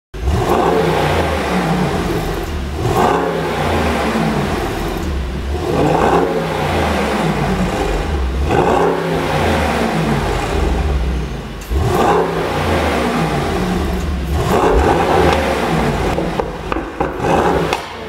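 Mercedes-AMG GT63 S's twin-turbo V8 revved repeatedly, a surge every two to three seconds, through an exhaust tuned for pops, with sharp pops and crackles as the revs fall.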